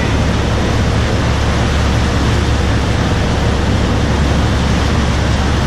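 Boat under way: steady rush of churning wake water at the stern over a low engine drone.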